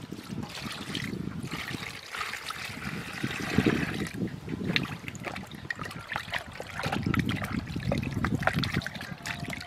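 Water poured from a plastic basin into another red plastic basin for about three seconds, then hands sloshing and splashing the water while washing a whole raw plucked chicken in it, with irregular small splashes.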